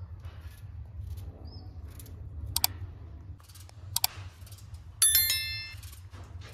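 Subscribe-button overlay sound effect: two sharp mouse clicks about a second and a half apart, then a bright notification bell chime, the loudest sound, that rings and fades. Underneath, faint scraping of a potato being peeled over a steady low rumble.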